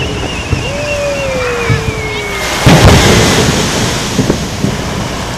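Fireworks display: a whistling shell climbs, its whistle falling slowly in pitch for about two and a half seconds, then a shell bursts with a loud boom about halfway through, its rumble dying away.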